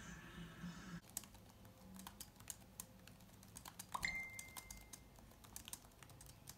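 Typing on a laptop keyboard, a run of light key clicks. About four seconds in, a smartphone's message alert sounds: a brief chime held on one tone for about a second.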